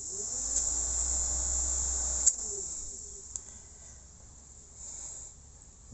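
Twin 12-volt clip-on dashboard fans running off the cigarette-lighter socket, a low whir with a click about two seconds in, after which the whir fades. A steady high-pitched hiss runs underneath.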